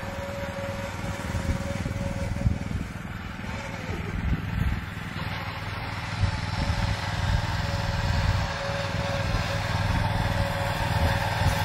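Engine of a Sraja walk-behind power weeder running steadily as it drags a levelling attachment over freshly tilled soil.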